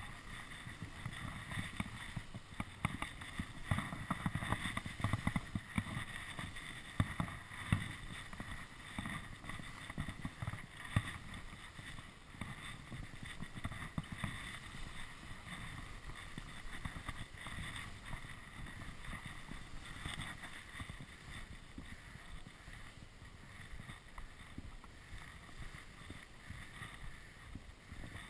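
Skis running over crusty, tracked off-piste snow: a steady hiss and scrape with frequent low knocks and rumble, busier in the first half, and wind buffeting the microphone.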